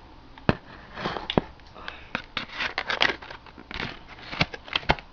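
Retail card-box packaging being cut open by hand: irregular clicks, snips and crackling of plastic and cardboard.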